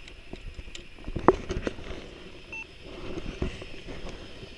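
Rustling and knocking of things being handled close to the microphone, with a short electronic beep about halfway through.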